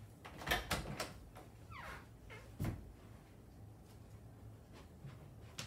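A bedroom door being handled as someone walks out of the room: a few quick knocks, a short falling creak, then a louder thump, and one more click near the end.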